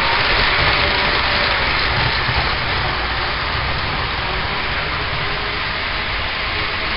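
HO scale model train rolling past on its track: a steady, even rolling and whirring noise from the cars' wheels and the locomotive's motor.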